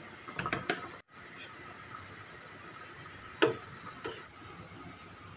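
Metal ladle scooping shrimp and squid out of a stainless steel pot of soup, clinking against the pot: a few light knocks about half a second in and one sharp clink about three and a half seconds in.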